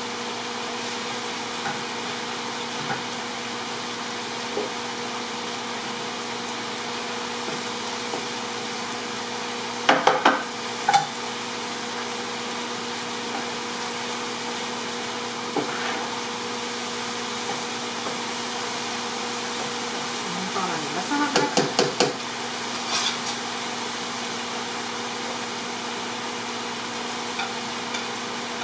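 Chicken pieces sizzling steadily as they fry in a large pan. A utensil knocks sharply against the pan a few times about ten seconds in, and again in a quick cluster about twenty-one seconds in.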